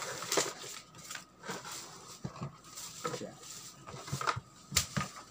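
Bubble wrap crinkling and a cardboard box being handled as a bubble-wrapped headset is lifted out, with irregular crackles and a sharp click near the end.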